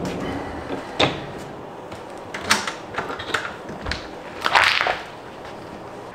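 A few clicks and knocks as a front door and a suitcase are handled, then the door handle and latch turning and the door opening, the loudest sound, about four and a half seconds in.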